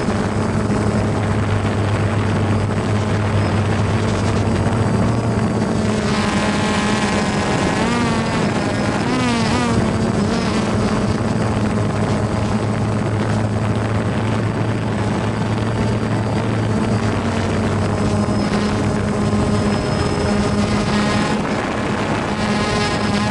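Small multirotor drone's propellers buzzing steadily as it hovers. For a few seconds near the middle the pitch wavers and slides up and down as the motors change speed.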